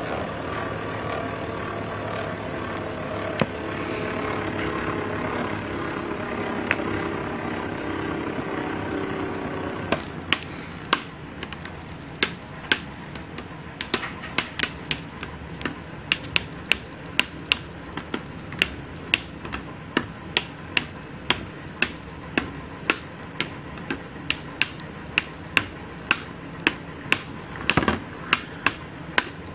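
Two metal Beyblade spinning tops, Basalt Horogium 145WD and L-Drago Destroy F:S, battling. For about the first ten seconds there is a steady whirring hum. After that come sharp clacks roughly twice a second as the tops strike each other.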